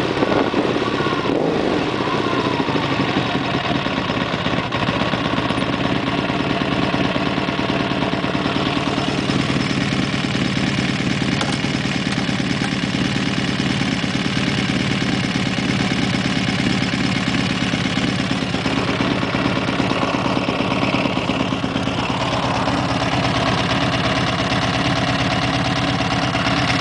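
Honda VF1000R's 1000 cc V-four motorcycle engine running. The revs drop back in the first couple of seconds, then it idles steadily.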